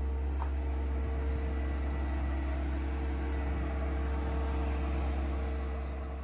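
Steady low mechanical hum with a faint held tone above it, starting to fade near the end.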